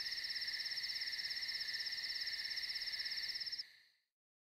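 Cricket trill: a steady, fast-pulsing high chirring that cuts off suddenly near the end, leaving silence.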